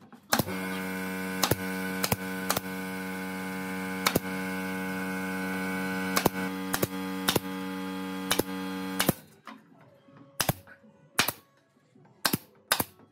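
Pneumatic brad nailer firing nails into pine pallet slats: sharp shots at uneven spacing, roughly one a second, about fifteen in all. A steady hum runs under the first nine seconds and cuts off suddenly.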